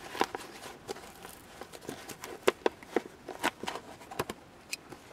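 Packaging being unwrapped by hand from a small OBD2 adapter: irregular crinkles and clicks of the wrapping being handled.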